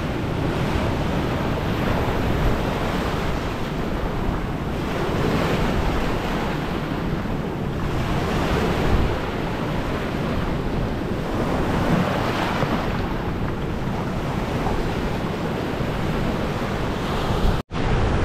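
Surf from a rough sea washing on the shore, rising and falling every few seconds, with wind buffeting the microphone. The sound cuts out for an instant near the end.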